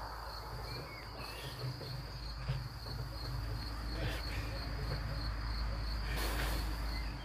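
Crickets chirping in a steady, evenly pulsing trill, over a low rumble. A brief rustle comes about six seconds in.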